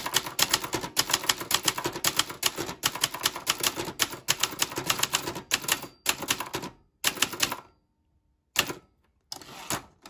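Brother Charger 11 manual portable typewriter being typed on: a quick, uneven run of loud, sharp typebar strikes against a hard platen, several a second, which stops about three-quarters of the way in. After a pause come a short clack and then a longer rattling stretch near the end, as the carriage return lever is worked.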